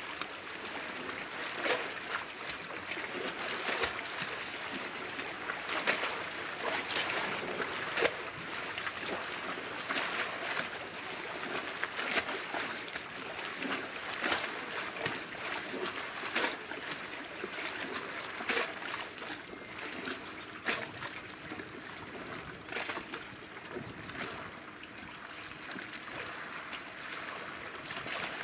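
Small waves lapping and trickling against the shore: a steady wash of water noise broken by many short, irregular splashes.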